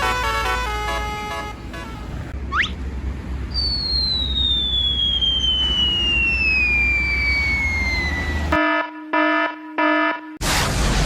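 Cartoon-style sound effects: a short tune of stepped notes fades out, a quick rising whistle follows, then a long falling whistle like a dropping bomb. Three short horn-like beeps come after it, and a loud explosion-like burst starts just before the end.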